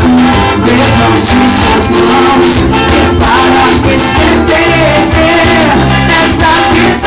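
Brazilian evangelical worship song played by a band, with singing over a steady beat.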